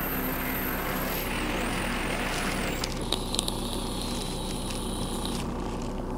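Bosch electric drill with a stepped cone bit boring through the sheet-steel tailgate. It runs with a high whine whose pitch sags as the bit cuts, then stops about three seconds in. A few sharp clicks and a fainter high whine follow.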